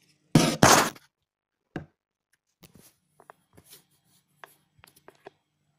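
Handling noise: a loud, brief rustling scrape about half a second in, a single knock, then a scatter of light clicks and taps.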